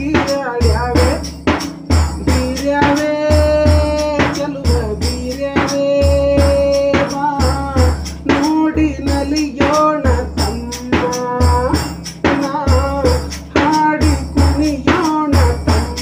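Music from a Kannada song with no sung words: a held melody line over a steady drum beat.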